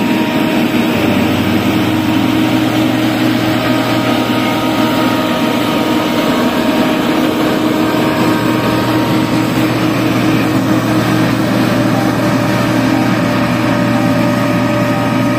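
Diesel engine of an SDLG motor grader running steadily under load while it grades a dirt road.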